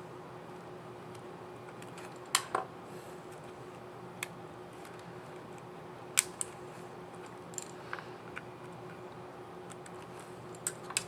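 Sharp, irregular plastic clicks and snaps from a laptop keycap and its scissor mechanism being handled, clipped onto the keyboard and pressed, about a dozen in all. The loudest come about two and six seconds in. A steady low hum runs underneath.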